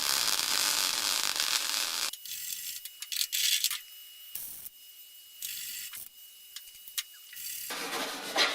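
Welding on a car's steel body panel: the arc crackles and sputters in bursts, dense for the first two seconds and again near the end, with a stretch of short, scattered bursts and clicks in between.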